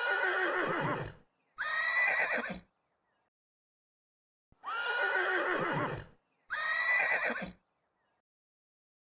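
Horse whinnying: two whinnies close together, then the same pair again about four and a half seconds later. Each call jumps up sharply in pitch, holds, then falls away.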